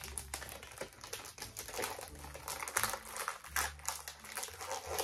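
Plastic food packaging crinkling and crackling as it is handled, a rapid, irregular run of small crackles that stops at the end.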